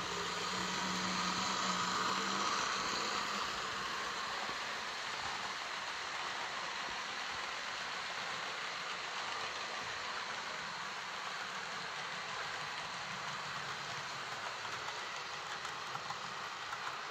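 Model Blue Train running on the layout, hauled by two blue electric locomotives: a steady whirr of small motors and wheels on track, with a low hum. It is loudest in the first few seconds as the locomotives pass close by, then settles to an even run.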